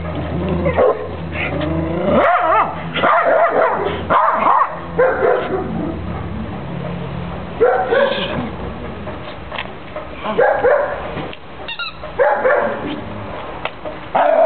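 A dog barking and yipping in several bursts of short calls, the pitch sliding within each call.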